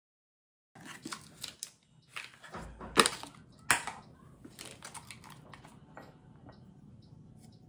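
Handling sounds of a plastic yogurt cup and spoon over a kitchen counter: rustling and clicks, two sharp knocks about three seconds in, then a few light ticks.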